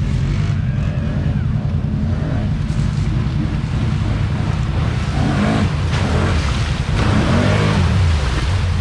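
ATV engine running as the four-wheeler drives through a muddy creek, with water splashing around it. The engine's pitch rises and falls between about five and eight seconds in as the splashing gets louder.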